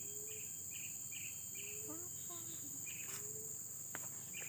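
Steady high-pitched chorus of insects, with a short chirp repeating about two or three times a second through the first half.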